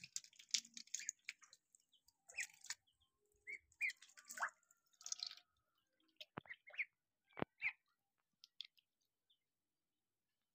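Chicks pecking grain from a plastic feeder, a quick patter of clicks with a few short peeps. After about five seconds come ducklings in shallow water, with scattered short peeps and drips.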